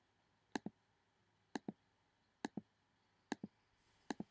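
Faint, sharp double clicks repeating at a steady pace of about one pair a second.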